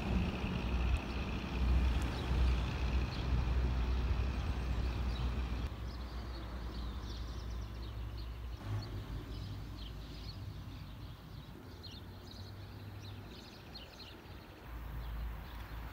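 Outdoor ambience: a low rumble of wind on the microphone that eases after about six seconds, with faint high bird chirps in the second half.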